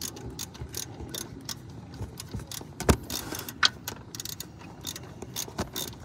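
Ratchet wrench clicking in short, irregular runs as the bolt of a spring-loaded serpentine belt tensioner is worked loose, with two louder sharp metal clicks around the middle.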